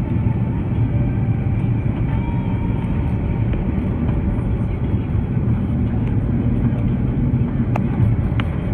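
Airbus A330 airliner noise: a steady low rumble of engines and rushing air, with a couple of faint clicks near the end.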